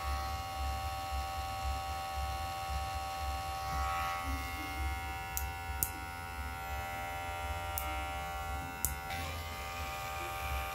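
Oraimo Smart Clipper 2 cordless hair clipper running steadily, a noisy motor buzz with a steady hum. A few sharp clicks come in the middle.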